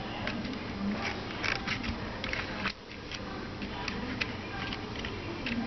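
Small metal tools clicking and tapping against the metal parts of an electric jigsaw's plunger and blade-clamp mechanism during reassembly: short, irregular clicks over a steady low background noise.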